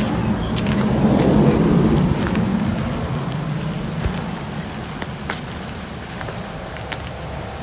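Wind rumbling over the microphone, loudest in the first few seconds and slowly easing, with scattered scuffs and clicks of footsteps on loose stones and gravel.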